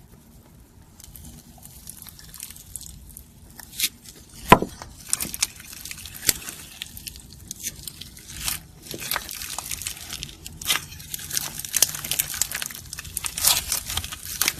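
Crunchy slime being squeezed and pressed by hand, giving irregular crackles and sharp pops. A single loud pop comes about four and a half seconds in, and the crackling grows denser toward the end.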